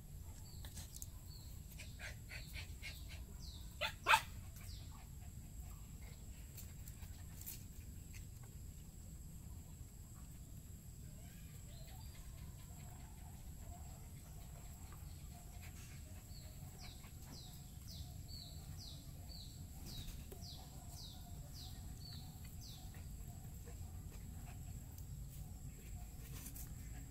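Faint animal calls: a single sharp bark about four seconds in, and later a run of short, high, falling chirps, about two a second, over a faint low hum.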